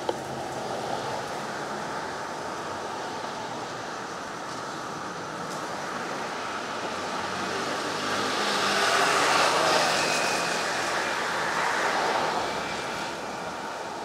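Street traffic with a car passing close by, its tyre and engine noise swelling and fading between about eight and twelve seconds in.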